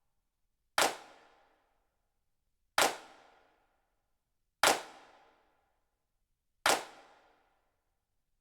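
Four single hand claps, about two seconds apart, each sharp and fading out over about half a second of reverb.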